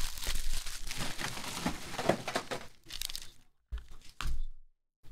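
Foil trading-card pack wrapper crinkling as it is torn open and handled, a dense crackle that dies away after about three and a half seconds, followed by a couple of short soft knocks about four seconds in.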